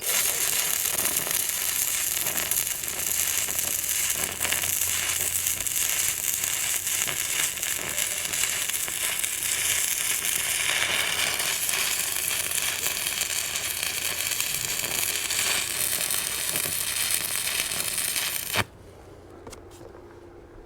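Electric arc welding a gate hinge: a continuous dense crackle and sizzle from the arc, held for about eighteen seconds as one long run, then cut off abruptly when the arc is broken.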